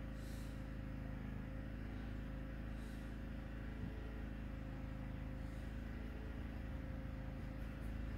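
A steady low hum with a faint constant higher whine, with a few soft brief hisses now and then.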